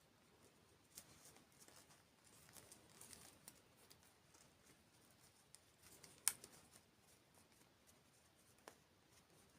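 Faint eating and food-handling sounds: scattered small clicks and crackles, with one sharper click about six seconds in and another near the end.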